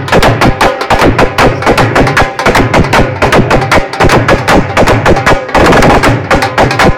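Dhol drum beaten loudly in rapid, dense strokes, playing dance rhythm.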